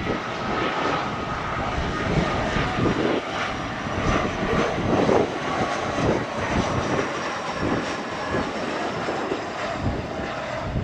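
Jet airliner engines running past at an airport: a steady rush of engine noise with a faint high turbine whine that slowly falls in pitch.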